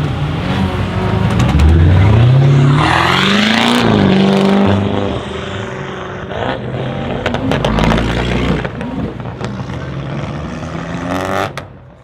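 Tuned BMW 650i V8 accelerating hard, its exhaust note climbing steeply for about three seconds before the throttle is lifted. It then runs on lower, with sharp exhaust crackles and pops, and fades away at the end.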